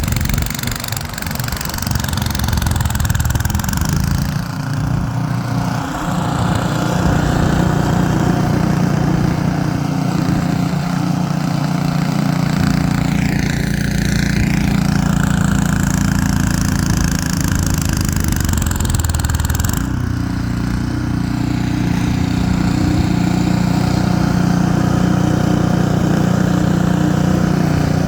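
Ariens 28-inch two-stage snowblower engine running steadily while it clears a snowbank of wet, heavy snow.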